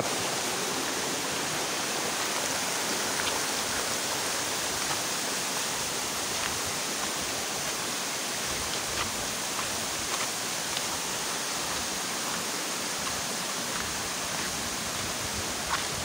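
Rushing water of a rocky mountain stream, a steady, even rush, with a few faint taps.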